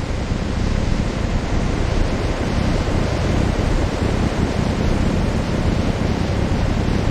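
Steady, loud rushing noise with a deep rumble underneath, even throughout with no rhythm or distinct events.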